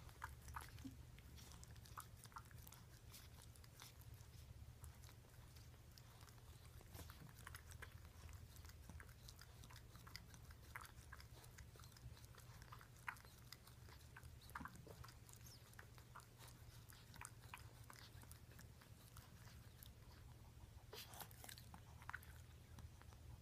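Faint, irregular smacking clicks of three-day-old Maltese puppies suckling at their mother, over a low steady hum.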